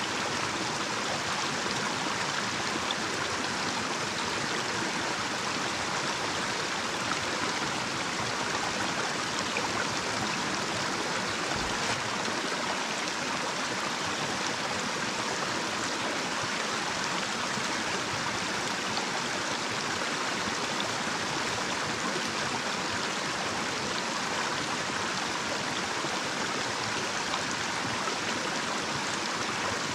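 Small shallow stream running over a little cascade: a steady rush of flowing water.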